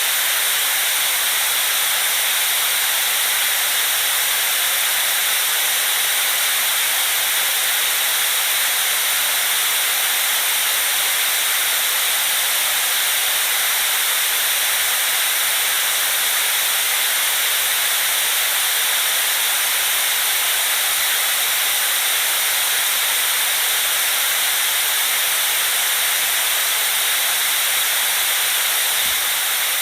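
Steady white noise: an even, unchanging hiss weighted toward the high end, with little low rumble.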